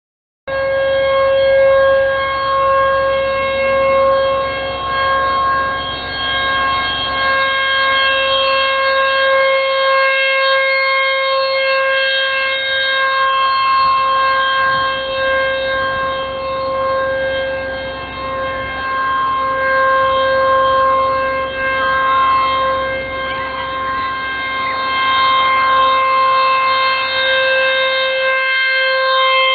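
Outdoor civil-defense warning siren being tested, sounding a steady tone. It cuts in abruptly about half a second in and holds one pitch with a stack of overtones, its loudness swelling and fading slightly.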